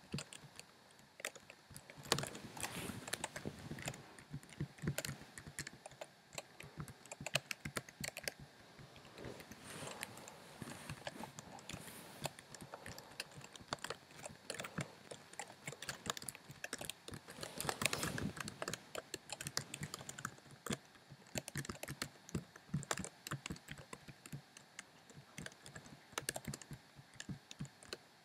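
Computer keyboard being typed on quickly and unevenly: a dense, irregular run of key clicks as random letters are mashed out, with a few busier flurries.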